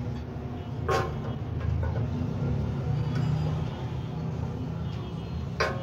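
Two sharp metallic knocks, about a second in and again near the end, over a steady low rumble: tools and metal parts being handled while the cutter machine is put back together.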